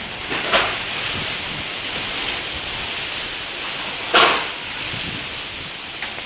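Strong wind rushing through tree foliage and buffeting the microphone in a steady hiss, with two sharper gusts, about half a second in and about four seconds in.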